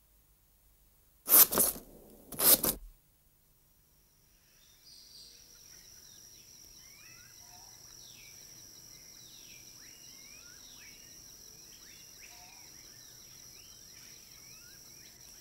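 Two short, loud noisy bursts about a second apart, then, from about five seconds in, tropical night ambience: a steady high insect drone with many short falling chirps over it.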